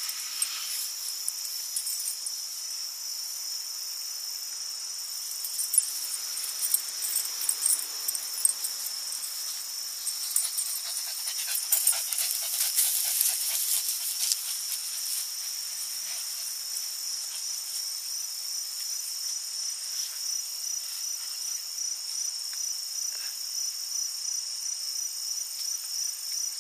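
Steady high-pitched insect chorus, with a run of irregular crackles and rustles in the middle stretch, loudest a little after halfway.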